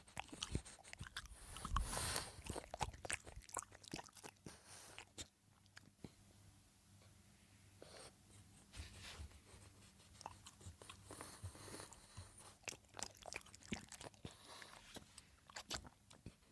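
French bulldog chewing and crunching its food, a run of irregular crunches and clicks that is busiest in the first few seconds, pauses briefly about halfway, then resumes.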